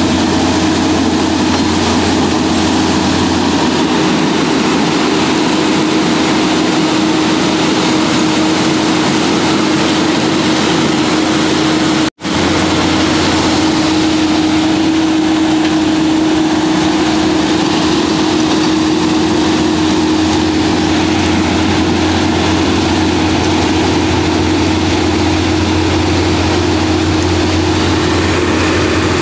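Diesel engine of a Plasser PBR-400U-RS ballast regulator running steadily, close up, with a constant low hum. The sound cuts out for an instant about twelve seconds in.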